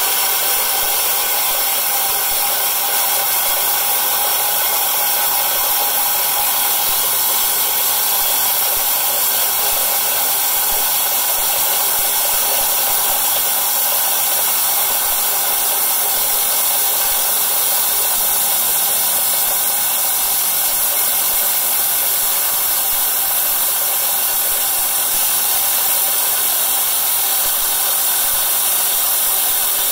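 Small electric stone-cutting saw running as a rock is fed steadily into its wet blade, a continuous high-pitched grinding hiss with no break.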